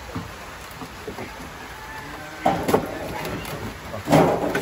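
Old wooden planks knocking and scraping together as they are shifted. The clatter comes in two short spells, about two and a half seconds in and, louder, just after four seconds.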